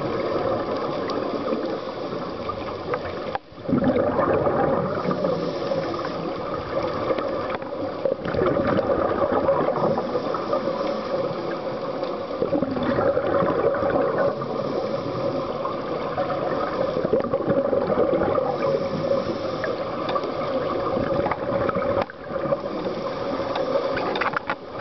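Underwater gurgle and rush of a scuba diver's exhaled regulator bubbles, with a few brief pauses between breaths.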